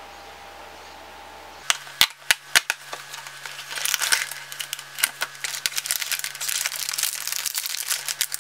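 A thin cardboard candy-kit box being torn open by hand, with a few sharp snaps about two seconds in, then dense crinkling and rustling of cardboard and plastic packets as the contents are pulled out.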